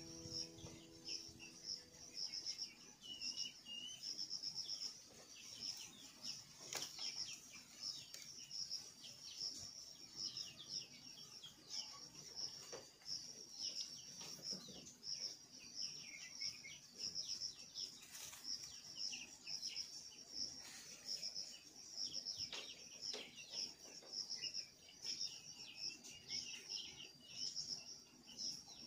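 Faint outdoor ambience: insects keep up a steady, rapidly pulsing high-pitched buzz, with frequent short falling chirps from birds over it.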